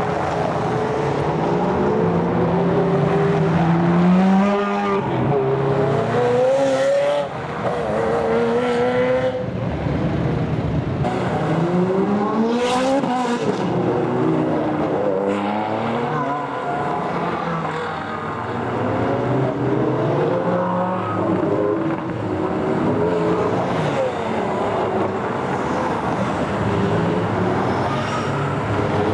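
Ferrari and other sports-car engines revving and accelerating past one after another, the pitch climbing through each gear and dropping at the shifts, with several cars overlapping.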